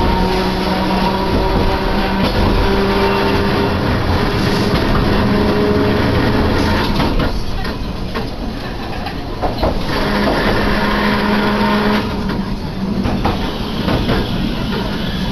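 An Iyotetsu streetcar running along its line, heard from inside the car: a steady rumble of wheels on rail with a steady motor tone. It eases off for a couple of seconds around the middle and again briefly later.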